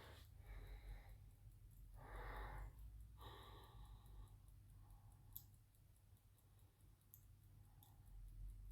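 Near silence: three faint breaths in the first few seconds, then a few light clicks of small tools or parts being handled.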